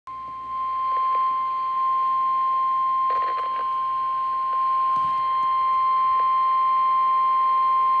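NOAA Weather Radio warning alarm tone, the single steady 1050 Hz tone that signals a warning broadcast is about to follow, played through a weather-band scanner's speaker. It grows louder within the first second, then holds steady.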